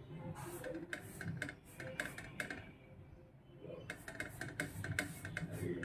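Faint light clicks and scraping as fingers lift and turn a thin samosa-sheet dough on a flat dosa griddle, coming in small clusters.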